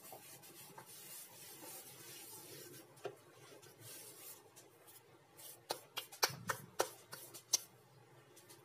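A hand brushing flour across a wooden tabletop with a soft rubbing hiss, then a quick run of sharp taps of the hand on the table about two thirds of the way through.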